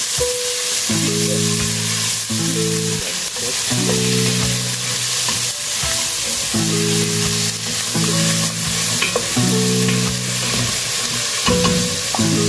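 Chopped onions sizzling steadily as they fry in hot oil, with a continuous crackling hiss. Background music with held chords plays underneath.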